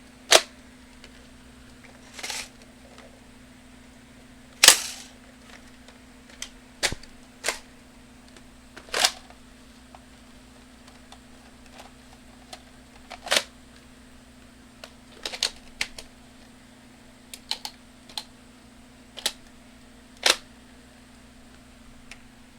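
Nerf blaster being reloaded by hand: irregular sharp plastic clicks and clacks, some single, some in quick clusters of two or three.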